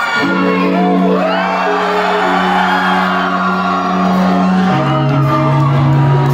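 Live band opening a song with a sustained held chord that steps down to a lower one about three-quarters of the way through, with the crowd screaming and whooping over it.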